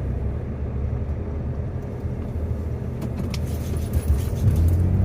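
Car engine and road noise while driving, a steady low rumble that grows louder near the end as the engine note rises.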